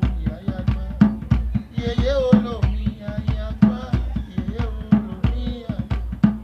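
Orisha music: steady, loud drumming with a melody line bending above the beat.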